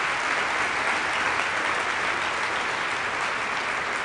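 Audience applauding steadily: many hands clapping at the end of a talk.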